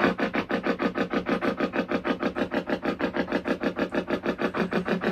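Spirit box (ghost box) radio sweeping through stations: a rapid, even chop of static, roughly eight pulses a second.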